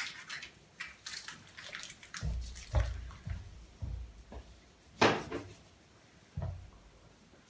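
Kolonya (cologne) splashing from a bottle into cupped hands and being rubbed between wet palms, with a few heavy footsteps on a wooden parquet floor and a sharp click about five seconds in.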